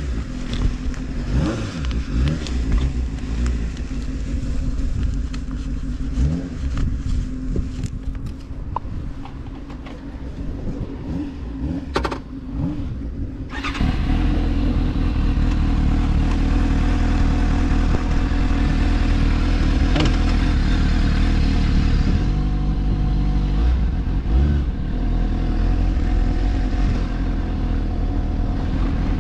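Motor vehicle engine running on the road. Its pitch rises and falls through the first half. About halfway in it jumps to a louder, steadier drone that runs on with small changes in pitch.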